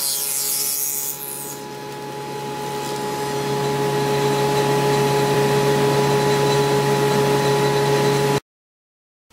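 Table saw running with a steady motor whine, its blade cutting through a pine workpiece for the half-lap joint in the first second or so. The sound stops abruptly near the end.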